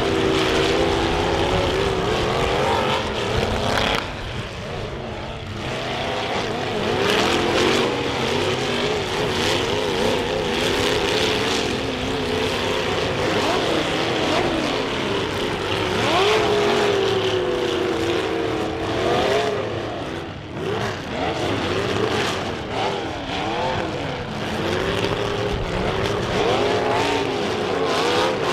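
Several compact demolition derby cars' engines revving up and down at once, with now and then a sharp hit as cars collide.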